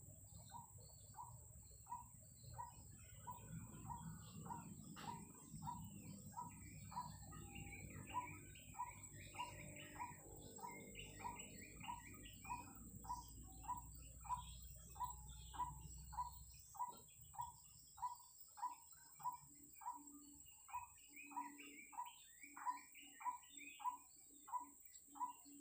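White-breasted waterhen (ruak-ruak) calling one short note over and over, evenly, a little under two a second, with smaller birds chirping higher up.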